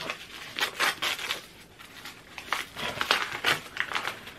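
Gift wrapping paper crinkling and rustling as hands pull and work it open, in short irregular crackles.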